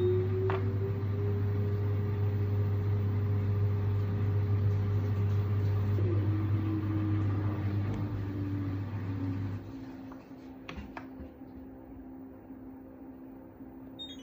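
LG front-loading washing machine's drum motor running: a steady hum with a whine that rises in pitch, holds, then drops and winds down, cutting off about two-thirds of the way through. A few clicks and a short electronic beep follow near the end.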